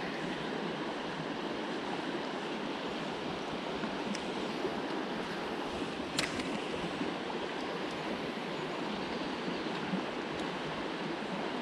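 Steady rushing of a fast-flowing river over shallow riffles, with one sharp click about halfway through.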